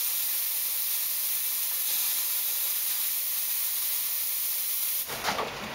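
Steam wand of an Expobar New Elegance two-group espresso machine opened, giving a steady, strong hiss of steam that cuts off suddenly about five seconds in as the steam handle is closed.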